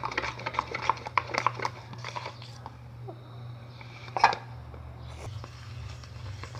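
Spoon stirring a sticky mix of egg white and dish detergent in a cup, with rapid clicking that stops about two and a half seconds in, then one louder knock about four seconds in.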